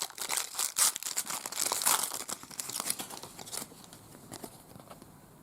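A trading card pack wrapper being torn open and crinkled by hand, a dense crackling that dies away after about three and a half seconds.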